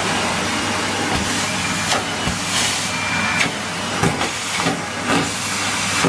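Henry canister vacuum cleaner running steadily with a loud airy hiss and low hum, its nozzle on a carpet covered in shredded paper. Scattered clicks and knocks come through as pieces are sucked up and the wand moves over the floor, and a thin whistle sounds briefly near the middle.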